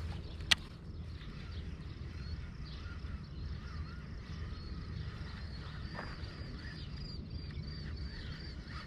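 Birds chirping, ending in a run of evenly repeated high chirps at about two a second, over a steady low rumble of wind on the microphone. A single sharp click about half a second in.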